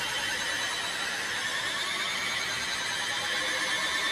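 Experimental electronic feedback music: a steady, shrill wash of many wavering high tones with no beat, holding one level throughout.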